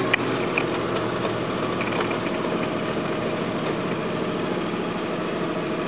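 Ford Expedition's V8 engine running steadily at a raised idle of about 2000 rpm, held there by an OBD-II scan tool's engine-running self-test rather than the throttle pedal.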